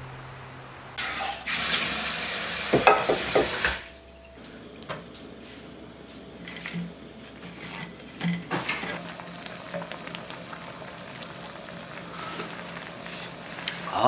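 Water running from a tap for about three seconds, stopping suddenly, followed by scattered light clicks and clinks of kitchenware.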